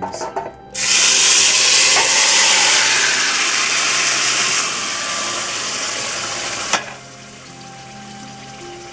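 Cooked pinto beans in their liquid poured into hot melted lard in a stainless steel pot, sizzling loudly as they hit the fat. The sizzle eases partway through and drops away after a single knock about two-thirds in, leaving a low simmer.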